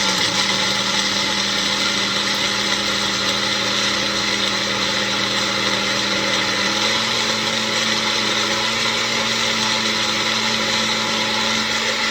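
Magic Bullet personal blender running steadily, blending a smoothie with ice in it; its motor hum steps up slightly in pitch about seven seconds in.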